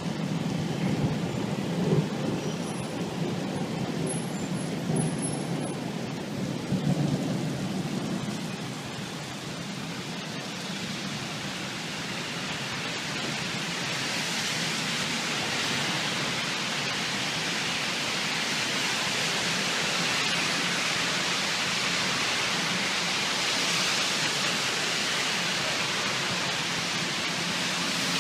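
Heavy thunderstorm rain pouring steadily, with low thunder rumbling through the first several seconds. About halfway through, the rain grows denser and hissier and keeps up.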